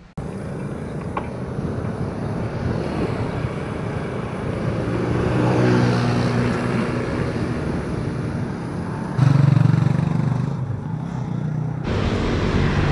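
Road traffic heard from a moving bicycle: steady road noise with motor vehicles passing, and one engine louder for about a second around nine seconds in.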